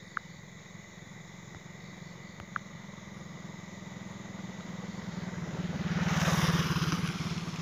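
A motor vehicle's engine running, growing steadily louder to a peak about six seconds in and easing a little after, with two brief faint chirps in the first few seconds.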